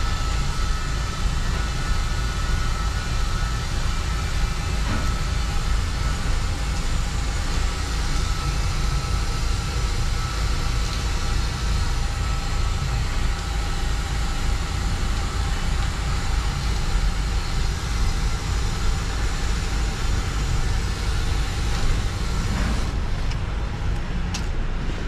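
DAF XF truck on the move: steady diesel engine drone and road noise, heaviest in the low end, with faint steady whines running through. Near the end the high hiss drops away and a few light clicks come through.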